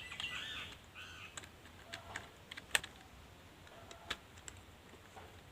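Slow, uneven keystrokes on a wired USB computer keyboard, one key at a time, as in a beginner's home-row typing drill.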